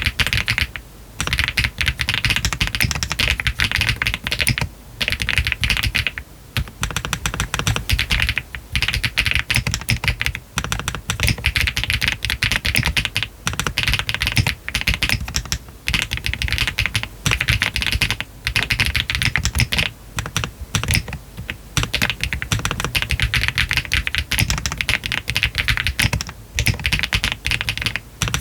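Fast, continuous typing on a Meletrix ZOOM TKL custom mechanical keyboard with Yogurt switches, a PC flex-cut plate and PBT cherry-profile keycaps, its case foam removed. Runs of keystrokes break off briefly every two or three seconds.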